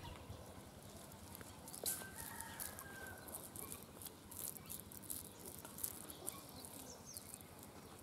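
A chicken clucking, with a short call about two seconds in, over the soft crackle of bare hands scraping and crumbling dry earth.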